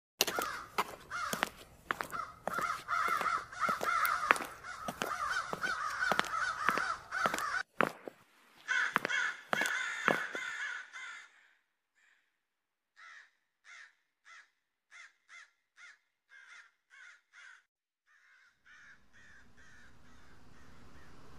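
Crows cawing over and over, dense and loud for the first half, with sharp clicks mixed in. After a short silence come a dozen fainter, evenly spaced short calls, then a low hiss that rises near the end.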